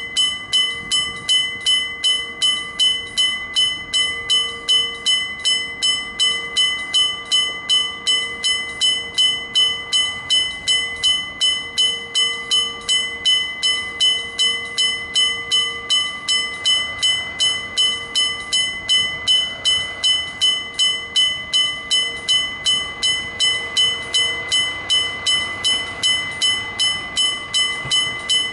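Electric gong-type level-crossing bell ringing, its hammer striking the gong steadily about twice a second with a bright, ringing metallic tone: the crossing's warning is active.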